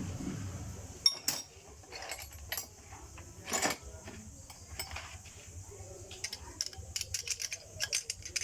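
Small metal parts and tools clicking and clinking in irregular sharp ticks, busier in the second half, as the fuel shut-off solenoid is fitted to an injection pump.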